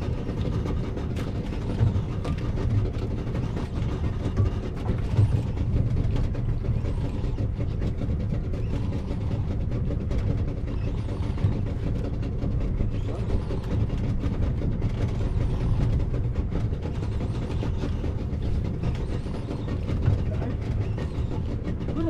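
Small boat engine idling, a steady low drone, with a few faint knocks over it.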